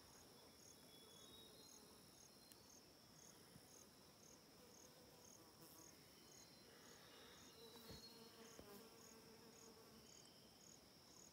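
Faint forest insects: a steady high-pitched buzz with a faint chirp repeating about twice a second.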